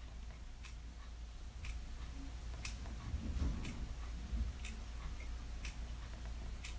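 Faint, even ticking about once a second over a low steady hum.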